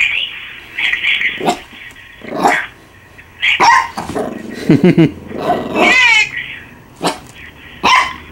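Australian Shepherd puppy barking and yipping in a string of short, high calls with some growling, about nine in all, one longer whining yelp about six seconds in.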